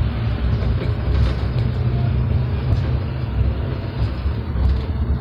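Songthaew, a pickup truck converted into a shared taxi, driving along: a steady low engine rumble with road noise, heard from the open-sided rear passenger bed.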